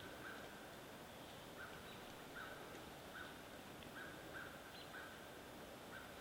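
Faint bird calling: a string of short notes on one even pitch, repeated about every half second to second, over quiet woodland background.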